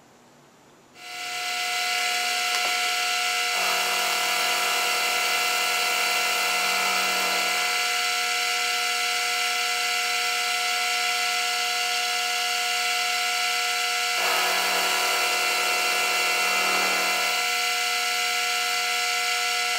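Milling machine running a 7/16-inch carbide end mill that is side-milling a small round bar held in a collet block: a steady machine whine made of several fixed tones. It starts about a second in, a deeper tone joins it twice, and it cuts off right at the end.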